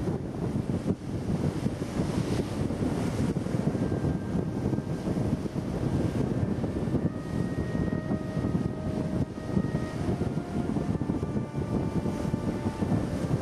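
Wind buffeting the microphone on a ship's open deck: a dense, fluttering low rumble. From about four seconds in, faint thin steady tones come and go above it.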